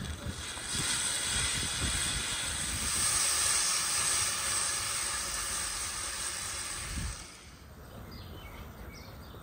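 Banana pieces sizzling in a frying pan over a charcoal grill, a steady hiss that dies down about seven seconds in.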